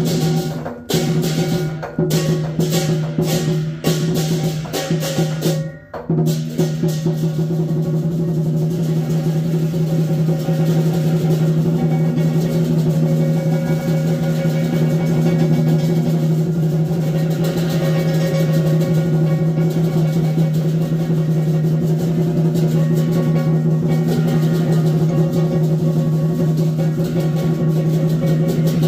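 Lion dance percussion of drum and cymbals: separate strikes with short pauses for the first few seconds, then about six seconds in it breaks into continuous rapid drumming and cymbal crashing that keeps on steadily.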